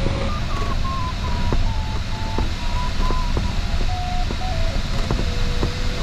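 Glider variometer tone stepping lower in pitch in several stages, with faint regular ticks, over steady rushing airflow noise in the glider cockpit. The falling pitch signals weakening lift or sink.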